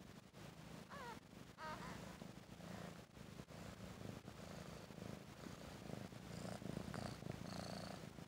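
Mother cat purring steadily, a low continuous rumble, with two brief high wavering squeaks about a second in.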